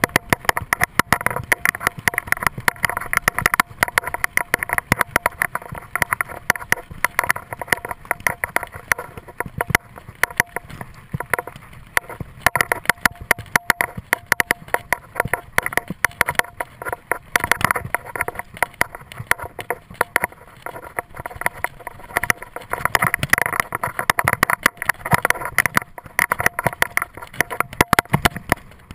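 Mountain bike rolling fast down a bumpy dirt singletrack: a constant, irregular rattle and clatter of the bike and its gear jolting over the rough ground, over the steady noise of the tyres on dirt.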